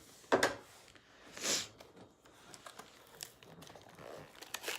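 Packaging being torn open and crinkled by hand while a diamond painting kit is unboxed, in irregular crackles, the loudest about half a second in and another about a second and a half in.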